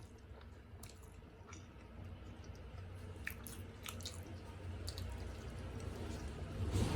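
Close-up chewing of chicken momo dumplings: wet mouth sounds with scattered small clicks, growing louder near the end.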